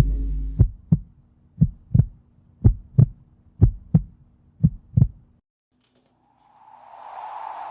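Heartbeat sound effect: five double thumps, about one a second, over a low steady drone, stopping about five seconds in. Music fades in near the end.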